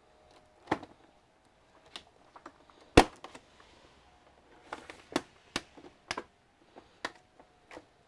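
Irregular clicks and knocks of hard plastic parts and small tools being handled while working on an all-in-one computer, with one louder sharp knock about three seconds in.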